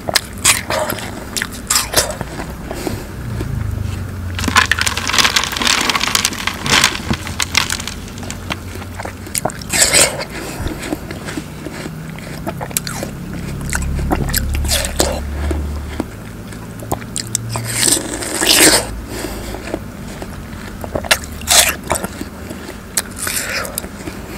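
Close-miked bites into chilled watermelon wedges: crisp, juicy crunches and wet chewing, repeated in bursts with sharp clicks between.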